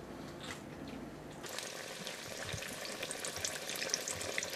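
Faint room noise, then about a second and a half in, hot oil in a deep fryer starts sizzling and crackling steadily.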